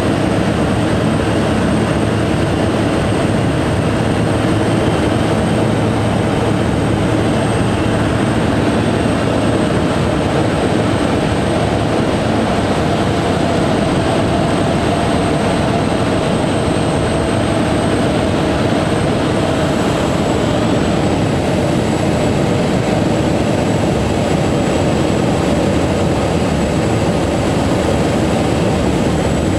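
Pilatus Porter's turboprop engine and propeller heard inside the cockpit on approach to land: a loud, steady drone with a thin high whine above it. The engine note shifts a little partway through.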